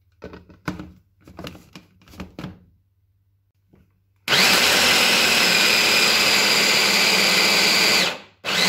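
A few knocks, then an electric mini chopper runs at full speed for about four seconds with a steady high whine, blending pancake batter of banana, milk and protein shake powder. It stops, then runs again in a short burst.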